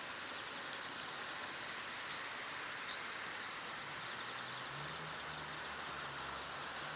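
Steady outdoor background hiss, with a few faint, brief high chirps in the middle and a low hum that comes in about four and a half seconds in.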